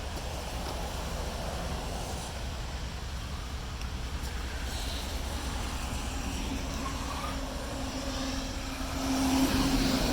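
Steady low engine rumble, with a droning tone that swells and grows louder near the end.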